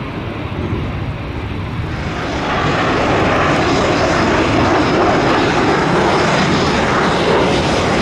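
Fighter jet engine noise, a loud rushing roar that swells about two seconds in and then holds steady.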